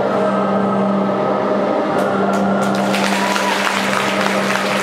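Figure skating free-skate program music played over a rink's loudspeakers: sustained low tones, with sharp clicks and a bright hiss joining from about two seconds in.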